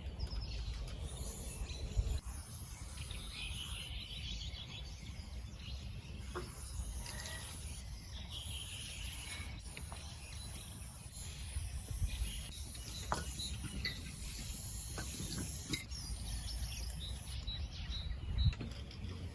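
Outdoor ambience: a steady low rumble with small birds chirping in short series now and then, and a few sharp clicks.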